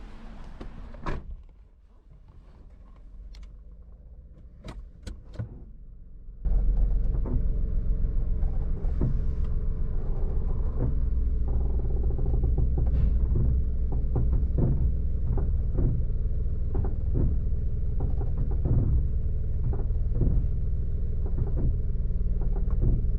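Mazda Carol HB25S running, after a few clicks: a loud, steady low rumble sets in abruptly about six and a half seconds in and continues, with light repeated knocks over it.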